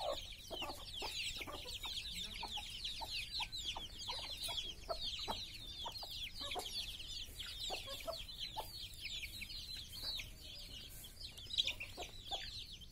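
Domestic chicks peeping in a dense chorus of short, high, falling notes, several a second and overlapping, with occasional low clucks from the older chickens among them.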